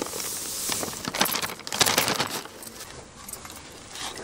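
Paper rustling as flour is shaken from it into a steel bowl of toddy palm fruit pulp, then a run of clicks and clinks from glass bangles and the bowl as the mixture is worked by hand.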